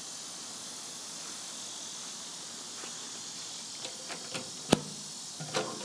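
Steady hiss in the background, then a few small metal clicks and one sharp clank near the end as the latch handle on the smoker's steel firebox door is worked open.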